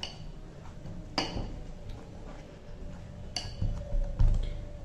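Hands kneading a stiff wheat and jowar flour dough in a glass bowl: three sharp clinks against the glass, then a few heavy thumps near the end as the dough is pressed down into the bowl.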